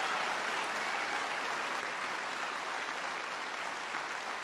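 Crowd applauding and cheering steadily, slowly dying down.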